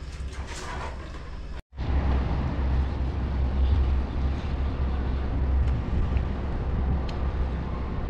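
Steady low rumble of construction machinery running on a roof-concreting site, which starts abruptly about a second and a half in after a brief dropout, following a quieter stretch of kitchen clatter.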